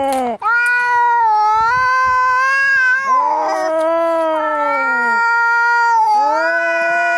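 Cats caterwauling: long, drawn-out, wavering yowls, about three in a row with brief breaks between them, the yowling of angry cats squaring off to fight.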